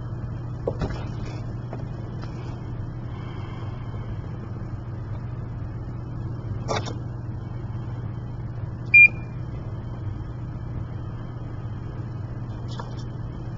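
IVAC PCAM PCA syringe pump being set up: a few short clicks as its buttons are pressed and its key is turned, and one short high-pitched beep from the pump about nine seconds in, the loudest sound. A steady low hum runs underneath.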